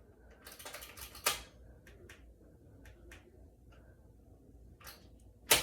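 Elevator panel being handled and its buttons clicked: a rustle ending in a sharp click about a second in, a few light ticks, and a loud sharp click near the end.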